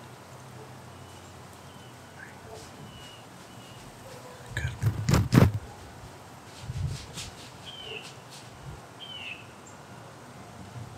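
Short, high bird chirps every second or two over faint outdoor background noise. About five seconds in comes a loud burst of knocks and rustling.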